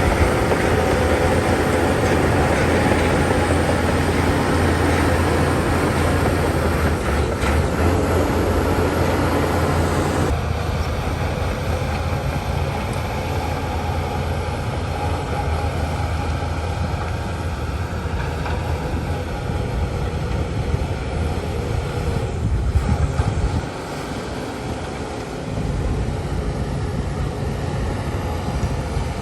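Heavy diesel earthmoving machinery running steadily, with a deep engine rumble under a broad mechanical hiss. The sound shifts abruptly about ten seconds in, losing some of its hiss, and the deep rumble drops away for a couple of seconds near the end before returning.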